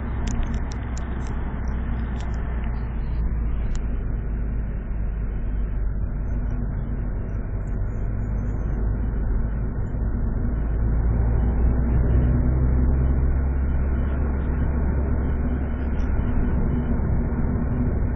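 Second-generation Mitsubishi Eclipse heard from inside the cabin while driving at about 50 km/h, engine near 2000 rpm: a steady low engine and road noise, slightly louder about two-thirds of the way in.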